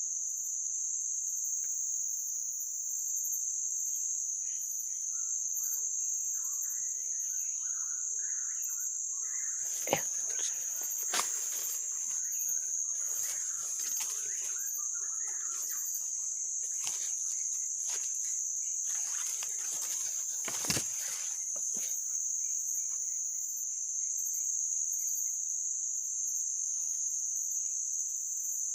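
Continuous high-pitched drone of insects such as crickets, with scattered short chirping calls in the first half and a few sharp knocks or handling bumps, the loudest about ten and twenty-one seconds in.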